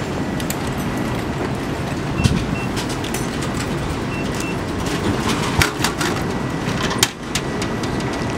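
Steady street traffic noise, with short paired electronic beeps and clicks as buttons are pressed on drink vending machines, twice in the first half. Several sharp clunks come between about five and seven seconds in.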